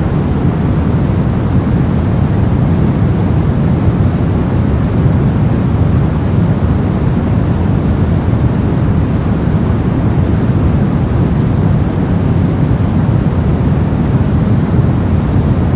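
Brown noise: a steady, even low rumbling hiss with its weight in the bass and little treble, unchanging throughout.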